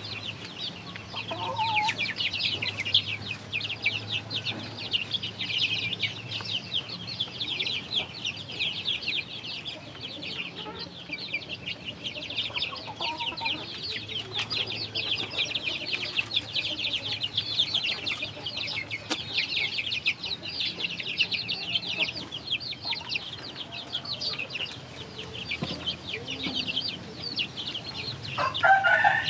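A flock of young chickens cheeping nonstop in a dense, high-pitched chorus while they feed, with one louder squawk at the very end.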